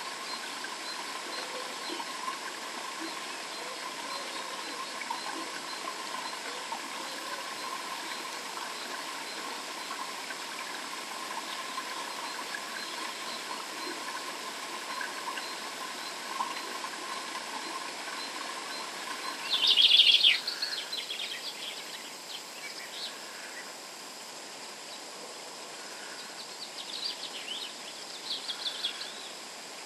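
Outdoor ambience with a steady background hiss and birds chirping: a loud flurry of chirps about two-thirds of the way through, and more scattered chirps near the end.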